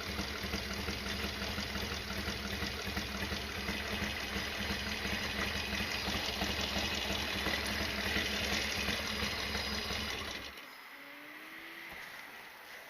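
Harley-Davidson Sportster XL1200R's air-cooled V-twin idling with a steady, uneven beat, then shut off about ten and a half seconds in, leaving faint outdoor ambience.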